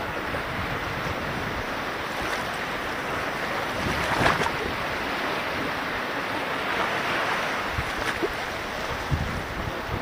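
Small sea waves washing in over shallow water and rocks, a steady wash of surf that swells louder about four seconds in and again near seven seconds. Wind rumbles on the microphone now and then.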